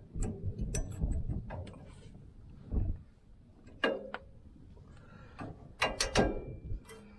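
Metal hand tools and brake parts clicking and clanking in an irregular series, as work goes on at a van's rear brake during a pad change. A few sharper metallic knocks ring briefly, the loudest about six seconds in.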